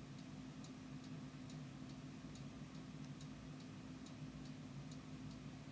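Faint, regular ticking, about two and a half ticks a second, over a low steady hum.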